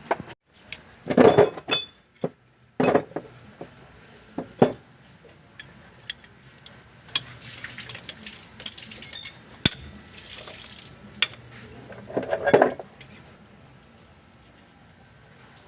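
Metal hand tools and parts clinking and clattering as they are handled: scattered sharp knocks, with longer rattling clatters about a second in and again near the end.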